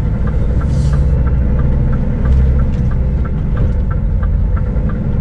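Scania S500 truck's diesel engine rumbling in the cab as the truck pulls away on a slippery, slightly uphill patch of snow. A light regular ticking runs through it, about three ticks a second, and a short hiss comes about a second in.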